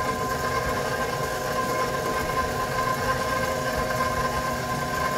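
Stand mixer motor running steadily at low speed with a steady whine, its flat beater turning through thick choux paste as eggs are beaten in.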